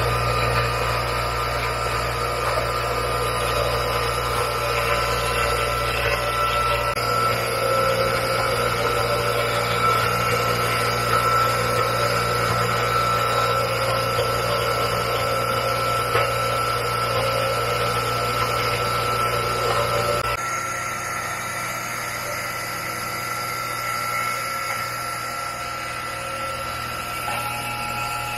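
An electric machine's motor running steadily with a high whine over a low hum. The low hum thins about seven seconds in, and the sound drops and changes about twenty seconds in.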